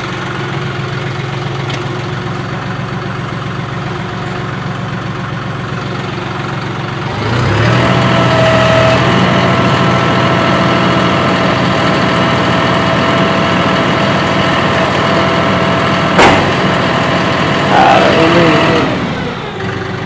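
John Deere 5075E tractor's three-cylinder diesel idling. About seven seconds in the revs rise and a steady hydraulic whine joins as the top link cylinder and three-point hitch move the box blade. There is one sharp knock partway through, and the engine settles back to idle just before the end.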